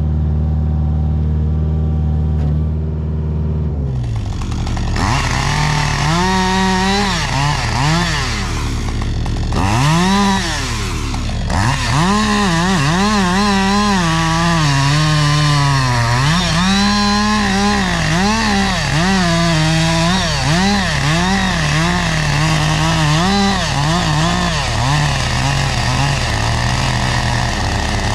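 Two-stroke chainsaw working through a cut, its engine pitch rising and dropping over and over as it revs and bogs under load. For the first few seconds there is only a steady low engine drone.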